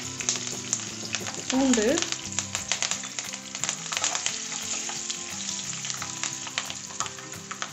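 Garlic cloves frying in hot oil with curry leaves and mustard seeds in a kadai, sizzling steadily, while a steel spatula stirs them with frequent sharp taps and scrapes against the pan.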